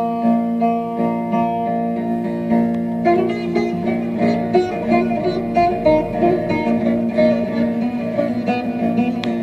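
Turkish folk music from a radio broadcast: a bağlama (saz) plucked in a running melody over its own steady drone strings.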